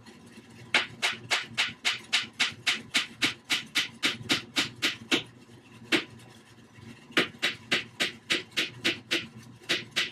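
Hammer driving nails into a wooden 2x4 frame: quick, sharp strikes about three to four a second, in two runs separated by a short pause holding a single blow.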